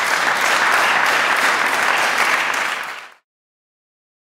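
Congregation applauding steadily, cut off suddenly about three seconds in.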